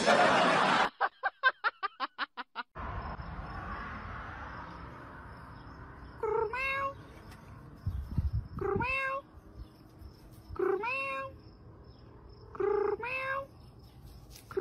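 Kitten meowing, five short calls about two seconds apart, each rising quickly and then holding. It opens with a brief loud noise and a rapid run of pulsing tones before the meows begin.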